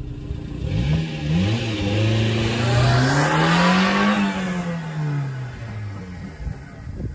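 1993 Subaru Sambar kei truck's 660 cc four-cylinder engine revving as the truck pulls away, climbing in pitch, with a gear change about a second in. It climbs again to a peak about four seconds in, then drops and fades as the truck moves off, with tyre noise on the tarmac swelling in the middle.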